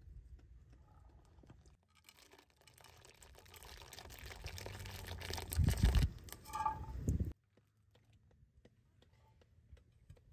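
Chickpeas tipped from a metal pot into a large pot of buttermilk soup: a noise that grows louder as they slide and splash in, peaking about six seconds in, with a brief metallic ring from the pots, then cutting off abruptly.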